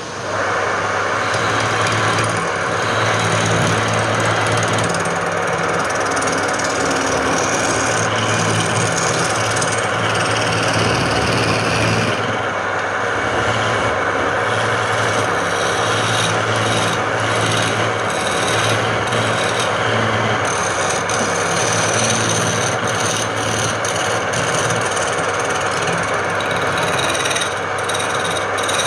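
Wood being worked on a running woodturning lathe: a steady scraping rasp of tool or abrasive against the spinning wood over the steady low hum of the lathe's motor.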